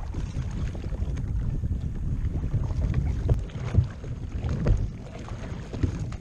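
Wind gusting over the microphone, with choppy water lapping and slapping against a kayak hull.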